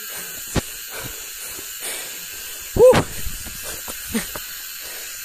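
Steady hiss with scattered footsteps and knocks of a person clambering down a rocky forest trail. About three seconds in comes a short, loud voiced exclamation, the loudest sound, and a fainter one just after four seconds.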